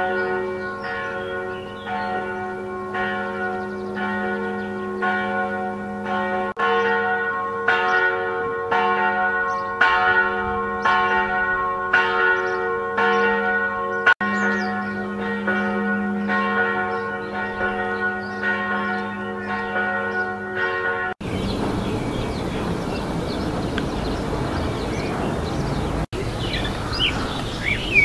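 Church bells ringing in a steady peal, with repeated strikes over long, overlapping ringing tones. About 21 seconds in the bells cut off to outdoor ambience, with birds chirping near the end.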